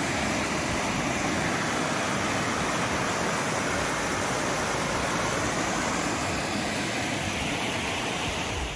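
Steady rushing water, the even roar of a waterfall or fast stream.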